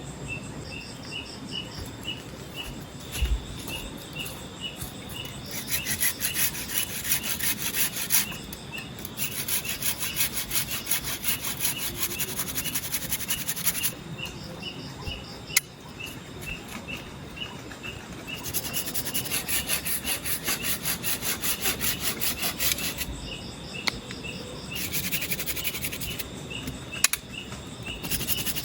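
A hand saw cutting wood in four spells of quick, even strokes, each lasting a few seconds. Under it, crickets chirp in a steady, regular pulse.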